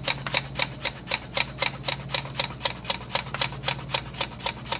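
Peeled potato being pushed rapidly back and forth across a Japanese mandoline blade, a quick even scrape-and-slice about five strokes a second as it cuts very thin slices of 1 to 1.5 millimetres. A steady low hum runs underneath.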